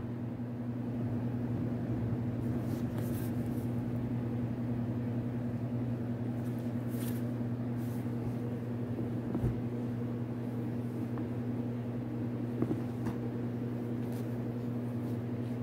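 Steady low hum in a small room, with a few faint rustles and light taps as a hardcover book is handled.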